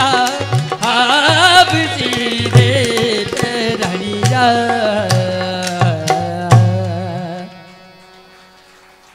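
Rajasthani Langa folk music: sung melody with harmonium and bowed fiddle over dholak beats and the sharp clacks of khartal, the Rajasthani wooden clappers. The piece ends about seven seconds in on a last clack and a held final note that dies away.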